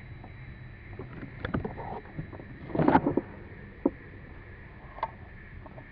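Irregular water splashes and light knocks over a low steady rumble, the loudest cluster of splashing about three seconds in.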